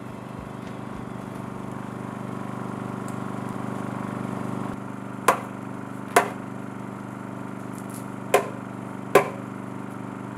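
Dead blow hammer striking the edge of an ash slab four times, in two pairs of blows starting about halfway in, driving two slabs together over dowel pegs into one joint. A steady low hum runs underneath.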